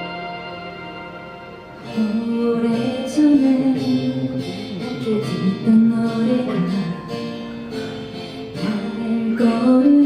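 A song performed with guitar accompaniment. A held chord fades, then about two seconds in a singer's voice comes in with the melody.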